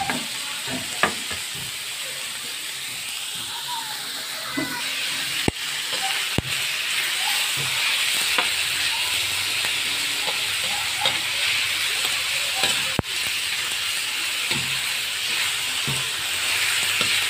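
Chopped pork sizzling as it fries in a wok, with a steady hiss. A metal spatula stirs it, scraping and clicking against the pan, with sharper clinks a little past five and six seconds in and again about thirteen seconds in.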